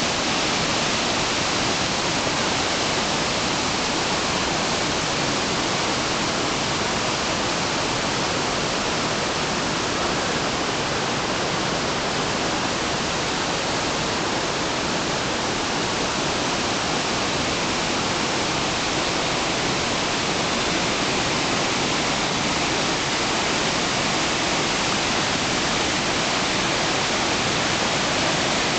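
Rushing water of the rocky stream at Torc Waterfall tumbling and splashing over boulders in small cascades, a steady, unbroken rush.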